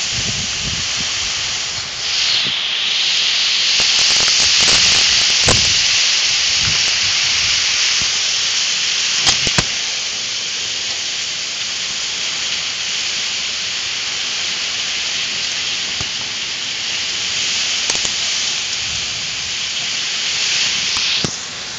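Hurricane rain pouring down with wind, a steady loud hiss, with a few brief knocks about a third of the way through.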